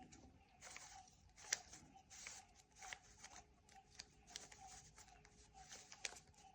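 Faint plastic clicking and scraping of a 3x3 Rubik's cube's layers being twisted in a quick series of turns, about one or two a second.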